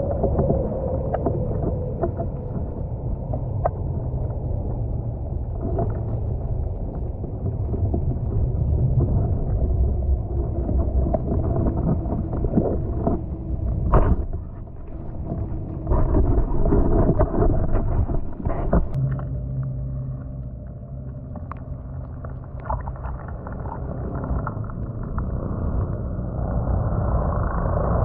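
Muffled underwater rumble of river water heard through a submerged camera, with scattered knocks.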